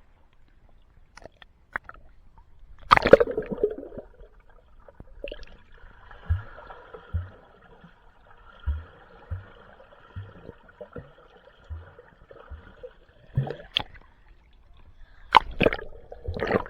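Pool water splashing and gurgling close to the microphone, with a loud splash about three seconds in and more splashes near the end.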